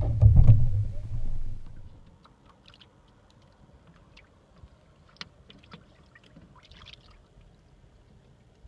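Water slapping against a wooden sailing canoe's hull close to the microphone: a loud low rumble with knocks that stops about two seconds in. After that come only faint small ticks and splashes of water lapping at the hull on calm sea.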